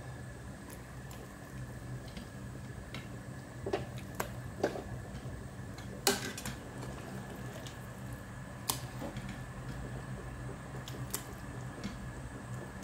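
Pot of pasta heating on a gas stove: a few scattered small ticks and pops over a steady low hum.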